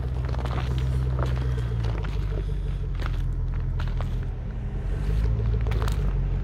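Range Rover Sport's engine running at low revs as it crawls up a rocky gravel trail, its note easing off about two seconds in and picking up again near the end. Scattered crunching of gravel and stones under the tyres and footsteps.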